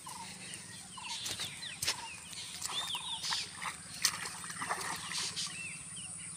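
Birds calling all around: repeated short chirps and arched whistles over a steady high-pitched hiss. A few brief sharp clicks are heard, the loudest about four seconds in.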